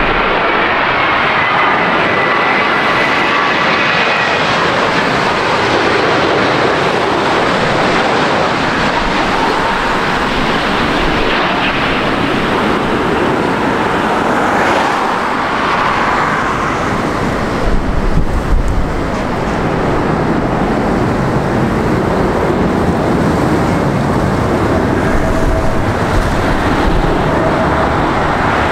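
Jet airliner engines running with a loud, steady roar, with thin whining tones gliding slightly downward in the first few seconds. A few brief low bumps about 18 seconds in.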